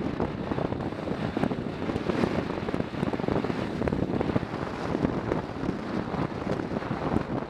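Wind buffeting the microphone of a camera mounted on a moving motorcycle, a steady fluttering rush with the bike's engine and road noise underneath.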